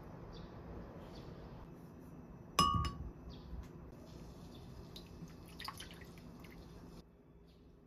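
Glass clinking: one sharp, ringing clink of a glass measuring cup about two and a half seconds in, then a few faint clinks as soy sauce is poured into the cup.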